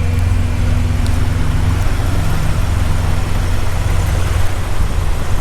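Idling diesel semi-truck engine, a steady low rumble.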